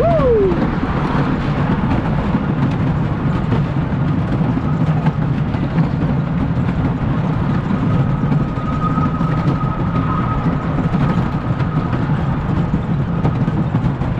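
Wooden roller coaster train rolling along its wooden track, heard from the front car: a loud, steady rumble of wheels on rail. A short high sound falls in pitch right at the start, and a thin steady high tone runs for a few seconds in the middle.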